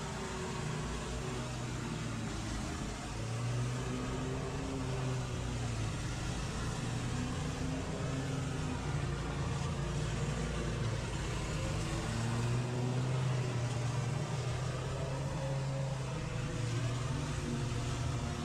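An engine running steadily under load, its hum shifting slightly in pitch now and then.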